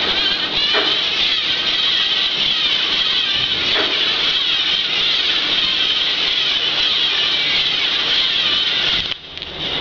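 LEGO Mindstorms NXT humanoid robot's electric servo motors whirring steadily as it walks, cutting off suddenly near the end.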